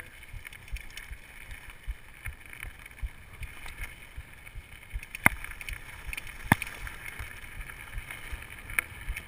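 Mountain bike rolling over rough trail, heard from a chest-mounted camera: a steady rumble and rattle with a few sharp knocks, the loudest a little after five seconds in and about six and a half seconds in.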